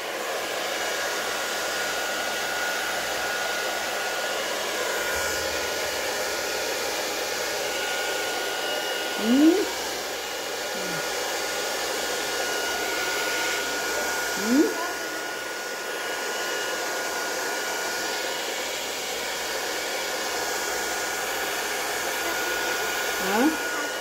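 Hand-held hair dryer blowing steadily at close range, a constant rushing hiss with a thin steady whine. Three times a short, rising voice-like call stands out over it.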